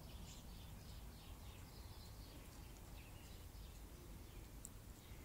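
Faint birds chirping, a run of short calls that thins out after the first few seconds, over a low steady rumble.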